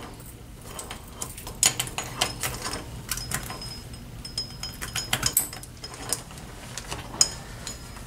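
Metal clips and hooks on pipe-plug tether cables clinking and clicking as they are handled and fastened, in irregular taps with brief metallic jingles.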